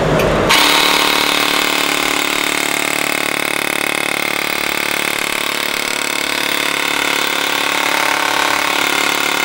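Well Pro electric Gatling-style airsoft gun running on a long burst: the motor spins the barrel cluster and cycles the mechanism at a very high rate, a steady buzzing whir that starts about half a second in.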